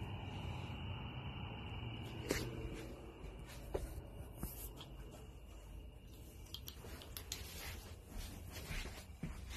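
Rubbing and scuffing handling noise with a few sharp clicks as the phone is moved about, growing busier in the last few seconds. Underneath is a steady high insect trill that stops about six seconds in.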